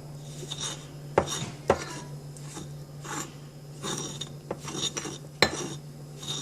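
A spoon scraping and stirring stiff, powdery dough mix in a bowl, in short repeated strokes, with three sharp taps of the spoon against the bowl.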